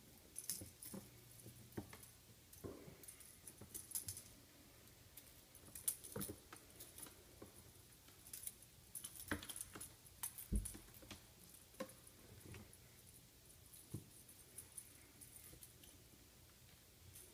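Bengal kittens pouncing on a feather wand toy over a tile floor: scattered light taps, scrabbles and clicks of paws and the toy, with light jingling, at irregular moments throughout.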